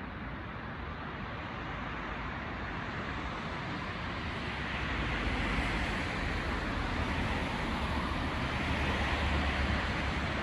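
Road traffic passing on the street below: steady tyre and engine noise that builds from about four seconds in as a van goes by, with a deeper rumble near the end as a bus passes.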